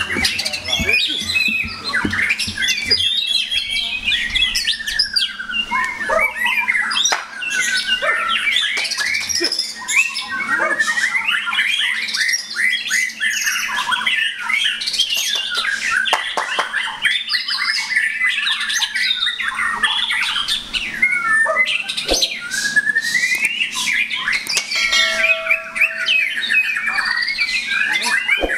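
White-rumped shamas singing loudly without pause in a songbird contest, a dense overlapping mix of rapid whistles, gliding phrases and harsh chattering notes.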